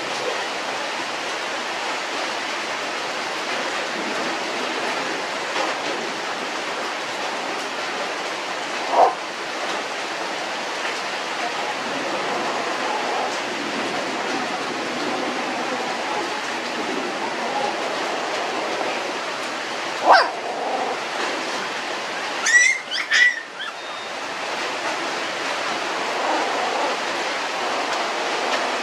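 Young puppies giving a few short whimpers and squeaks over a steady hiss: one about nine seconds in, another around twenty seconds, and two high, wavering squeals a couple of seconds after that.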